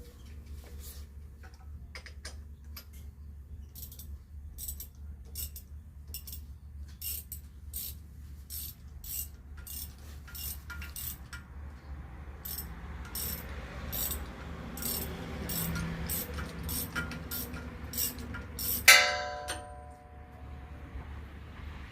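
Metalwork on a backhoe's rear attachment: a run of sharp metallic clicks and taps, about two a second, over a low steady hum, then one loud metal clang near the end that rings on briefly.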